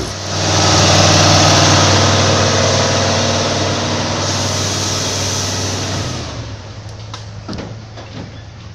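Heavy truck's diesel engine running loud and steady, easing off about six seconds in.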